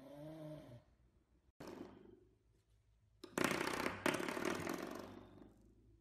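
A serval growls low and wavering for under a second. Then a spring doorstop, pawed and bitten by a puppy, is flicked and twangs with a buzzing rattle. This happens about three times, and the two flicks past the middle are the loudest and ring for a moment.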